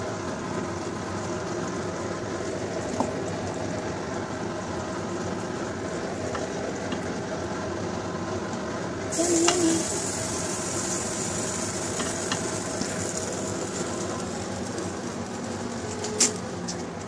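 Steady kitchen hiss that turns sharply brighter and hissier about nine seconds in, with a few light clicks and clinks as cooked eggplant is spooned from a pot onto a plate of rice.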